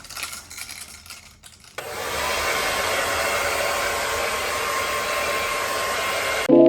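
Hair dryer switched on about two seconds in, blowing steadily with a faint whine, then cut off abruptly near the end. Light handling clicks come before it.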